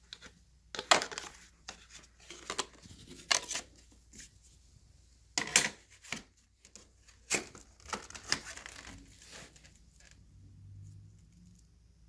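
Handling noises from an upright vacuum cleaner with its motor off: an irregular string of sharp scrapes, clicks and rustles. The loudest come about one, five and a half and seven and a half seconds in, and the sounds die away over the last couple of seconds.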